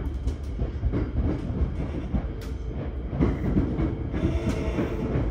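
Yokohama Municipal Subway 3000S train running, heard inside the passenger car: a steady low rumble of wheels on rail with scattered clicks and knocks. A steady hum comes in about four seconds in.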